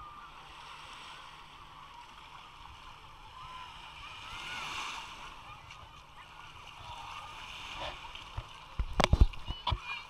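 Busy beach ambience: a hubbub of many distant voices and shouts over small waves lapping at the shore. A few loud sudden thumps come near the end.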